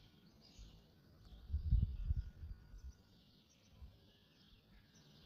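Birds chirping faintly and continually in the background, with a short cluster of dull low thumps about two seconds in.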